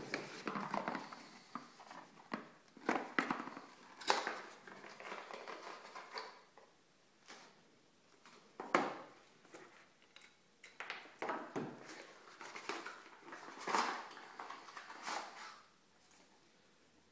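Packaging being handled by hand: irregular rustling of plastic wrap and cardboard box parts, with a few sharper clicks and knocks.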